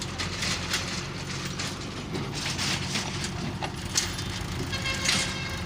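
Heavy diesel engine of the loading machinery running steadily, with irregular crunching and scraping noises over it and a sharp knock about four seconds in.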